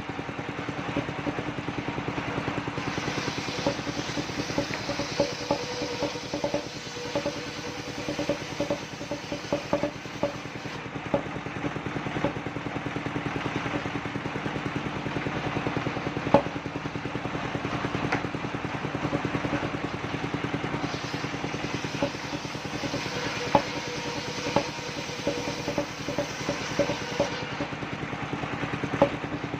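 Engine of a mobile circular sawmill running steadily, with sharp knocks now and then.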